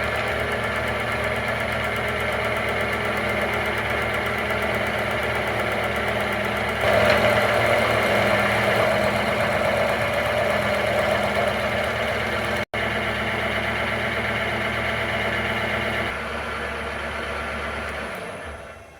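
Milling machine running a face mill through a metal workpiece, a steady mechanical drone with cutting noise that grows louder about seven seconds in. It breaks off for an instant near the middle and fades away near the end.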